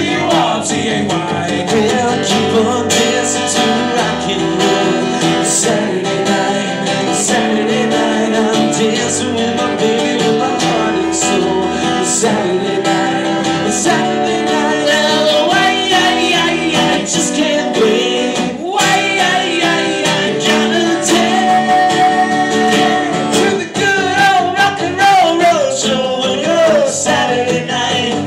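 Live acoustic country-style music: two acoustic guitars played together with a guitar played flat on the lap, slide-style, and a voice singing over them.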